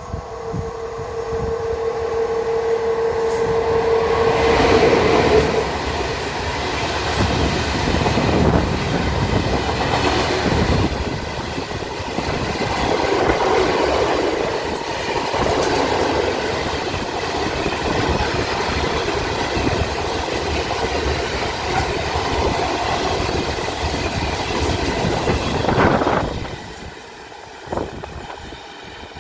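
Long freight train of open coal wagons, hauled by an ET22 electric locomotive, rolling past with wheels clattering over the rail joints. A steady whine runs through the first few seconds, and the noise drops away suddenly about 26 seconds in as the end of the train passes.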